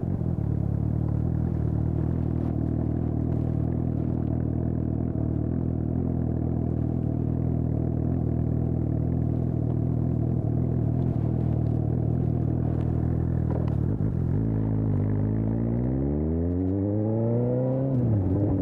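Suzuki GSX-S750 inline-four through a Storm aftermarket exhaust, running steadily at low revs. About fifteen seconds in it revs up under acceleration, with a quick drop in pitch near the end as it shifts up a gear, then the revs climb again.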